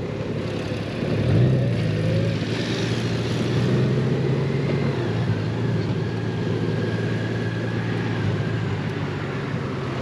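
Motorcycle engine running under way, with wind noise. The engine note lifts briefly about a second in, then holds steady.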